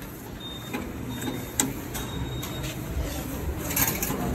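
Subway deposit refund machine drawing in a single-journey transit card and running its mechanism as it processes the card to return the 500-won deposit. There is a sharp click about a second and a half in, and busier mechanical noise near the end.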